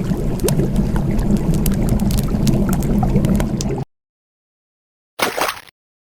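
Water gurgling and bubbling, a steady churning with many small droplet clicks, which cuts off abruptly near four seconds in. About a second later comes a brief half-second water sound.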